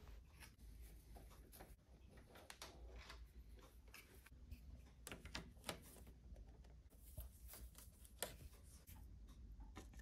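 Near silence with faint, scattered clicks and scrapes of a screwdriver turning a motorcycle radiator's mounting bolts and a hose clamp screw.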